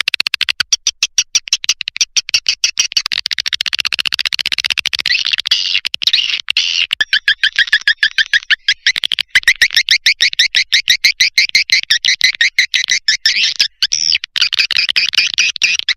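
Swiftlet lure call: a recorded run of edible-nest swiftlet twittering, fast high chirps repeated many times a second, played back to draw swiftlets into a nesting house. It breaks off briefly about 6 s and 14 s in.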